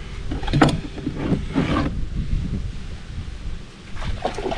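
Wind buffeting the microphone as a steady low rumble, with a cluster of short rustling and handling noises in the first two seconds and a few more near the end.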